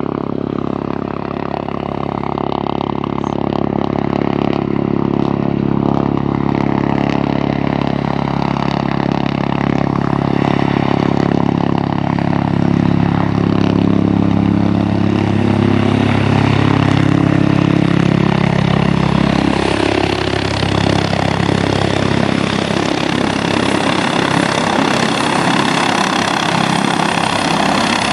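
Airbus H145 twin-turbine helicopter approaching to land: a steady rotor and turbine drone whose tones slide down in pitch about halfway through, then a growing rushing rotor noise as it comes close.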